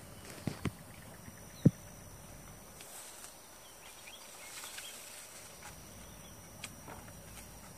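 Two light knocks, then one short sharp thump about one and a half seconds in, over a faint steady outdoor background with a thin high whine.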